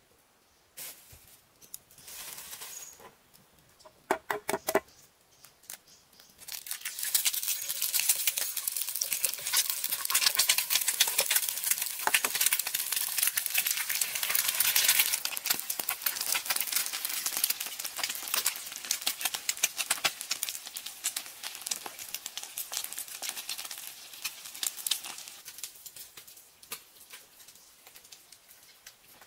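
Eggs frying in hot oil in a frying pan: a dense, crackling sizzle that sets in about six seconds in and dies down near the end. A few short knocks come just before the sizzle starts.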